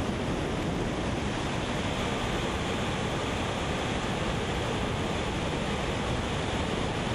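Steady rush of river water pouring over a dam spillway and churning through the whitewater below it.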